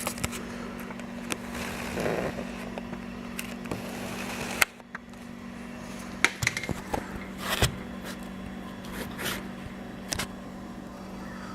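Camera being handled: scattered clicks, knocks and rubbing, with a sharp click about four and a half seconds in, over a steady low hum.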